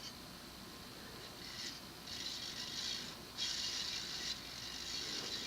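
Universal (TAT) 52-inch spinner ceiling fan running on medium, with loud, noisy motor bearings. Their high-pitched hiss comes in uneven stretches from about a second and a half in.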